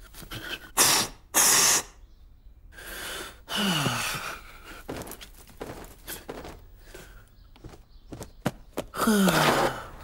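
A man's sharp breaths and hard puffs of air blown into a cartoon parrot's beak as mouth-to-mouth: two loud blasts about a second in, then more puffs. Two of the puffs, about 4 s in and near the end, carry a tone that slides down in pitch as the parrot inflates.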